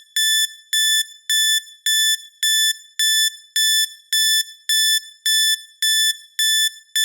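Electronic timer alarm going off as the countdown reaches zero: a short, high beep of one steady pitch, repeating evenly about twice a second.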